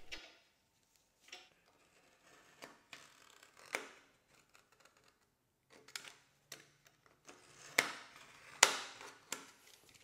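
Sparse light clicks and snips of hand work cutting a new rubber gasket from scrap rubber sheet, with two sharper clicks near the eight-second mark.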